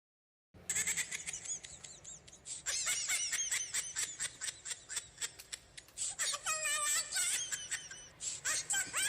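High-pitched laughter sound effect: rapid squeaky bursts of laughing that start suddenly about half a second in.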